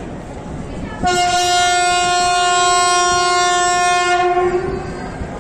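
Train horn sounding one long, steady blast of about three seconds that starts abruptly about a second in, over a low rumbling background.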